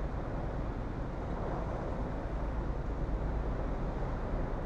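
Hurricane wind and heavy wind-driven rain: a steady rushing noise, with wind rumbling on the microphone.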